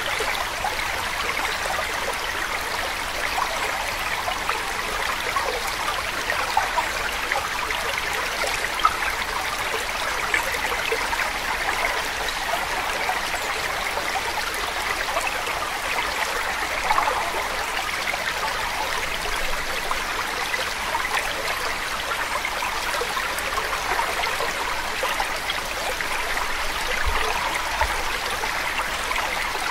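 Running stream: a steady, even trickling and burbling of water that never stops, with a faint low hum underneath.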